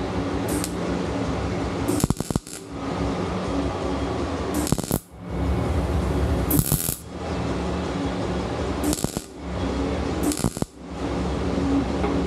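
Metalwork on a steel motorcycle fender: metallic clinks and rattles over a steady hum, broken by about six short, sharp noises a second or two apart.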